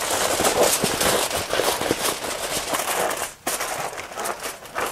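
Aluminium foil crinkling and crackling as hands press and crimp it tightly around the rim of a roasting pan, with a brief pause about three and a half seconds in.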